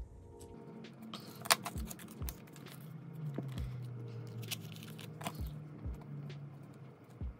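Soft background music, with scattered light clicks and taps from a pen and the plastic pages of a ring binder being handled.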